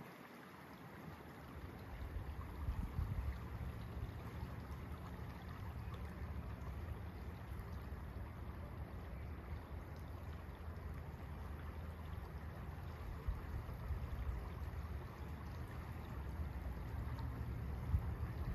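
Wind buffeting the phone's microphone: an uneven low rumble that swells about two seconds in, over a faint steady hiss.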